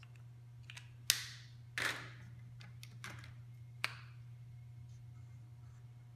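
A few sharp plastic clicks and knocks of felt-tip markers being handled and capped while one marker is swapped for another, the sharpest click about a second in, a second knock just before two seconds and lighter clicks near three and four seconds. A low steady hum underneath.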